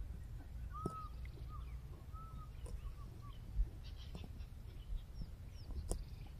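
Plains zebra cropping grass, with short faint tearing clicks every second or so, while small birds chirp: arched chirps in the first half and higher, quicker chirps later. A steady low rumble of wind runs underneath.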